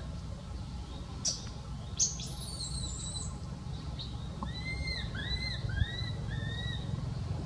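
Baby macaque giving a quick run of about five short, arched squeaky calls, roughly two a second, in the second half. Two sharp clicks come earlier, over a steady low rumble.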